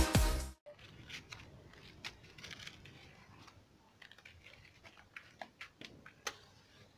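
Electronic dance music that cuts off about half a second in, followed by faint, scattered short clicks and ticks, the loudest near the end.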